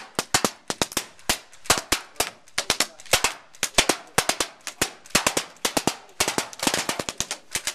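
Airsoft guns firing, a fast irregular run of sharp snapping shots, several a second, coming thickest near the end.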